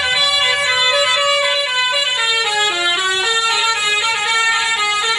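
A bus's Basuri musical air horn (telolet) playing a tune, its notes stepping up and down in quick succession without a break.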